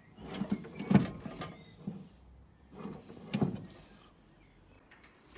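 Scattered knocks and clunks as the Cortina's engine is manoeuvred out of the engine bay on an engine crane: a few sharp knocks in the first second and a half, and a louder bout about three and a half seconds in.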